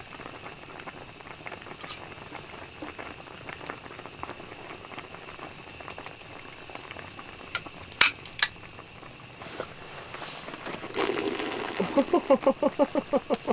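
Soup bubbling at a steady boil in a pot, a dense crackle of small bubbles. Two sharp clicks come about eight seconds in, and near the end a quick run of rhythmic pulses, about eight a second, rises above the bubbling.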